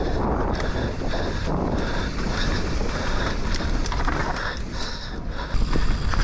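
Mountain bike riding down a wet, muddy enduro trail: wind rushing over the microphone with a low rumble, plus steady rattling and knocks from the bike over rough ground, getting louder about five and a half seconds in.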